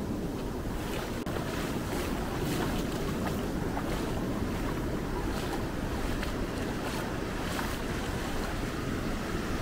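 Atlantic surf washing on the beach, with wind rumbling on the microphone.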